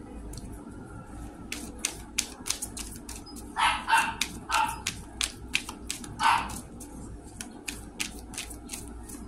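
A deck of tarot cards shuffled by hand: a steady run of sharp clicks and taps as the cards slap together, with four short, louder sounds in the middle.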